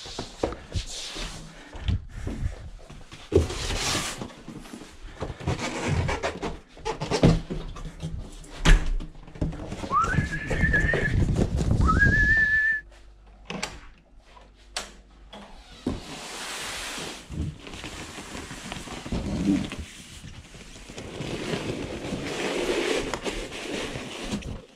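A large cardboard bike box being carried and handled, with rustling and scraping, footsteps and irregular knocks. Two short rising whistles come about ten and twelve seconds in.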